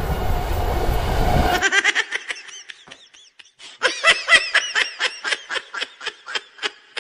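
An electric train runs with a steady rumble and hum that cuts off abruptly about a second and a half in. Then high-pitched laughter follows in quick repeated bursts, louder from about four seconds in.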